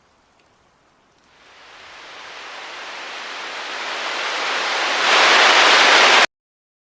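An even hiss of noise swells steadily louder from about a second in, jumps louder about five seconds in, then cuts off abruptly into silence.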